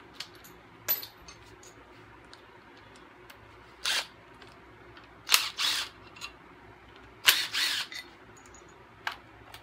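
Five short, sharp bursts of tool noise with gaps between them, as the bolts of the LT1's opti spark delete plate are worked loose; the bursts near the middle and towards the end are the longest and loudest.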